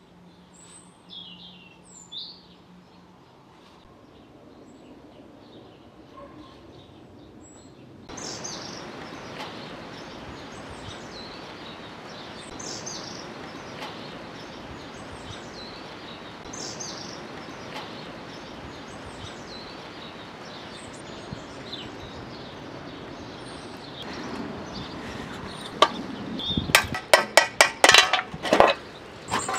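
Birds chirping every couple of seconds, at first over near silence and then over a steady outdoor background noise. Near the end, a quick run of loud metal clanks and knocks as the rusty tiller's frame and fittings are handled.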